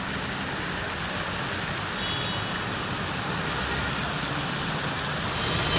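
Steady rushing noise with a low rumble and no clear tones, growing slightly louder toward the end.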